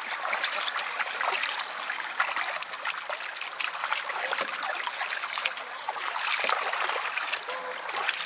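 Water splashing and trickling around a canoe as it is paddled off, with small irregular paddle splashes and drips.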